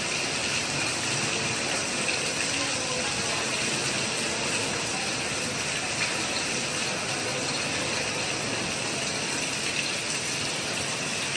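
Heavy cyclone rain pouring with strong wind: a steady, even rushing hiss.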